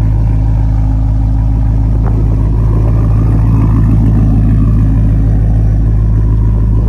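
Holden VE SS wagon's 6.0-litre V8 idling through a straight-piped 3-inch stainless steel exhaust with the mufflers deleted, a loud, steady, deep idle with no revving.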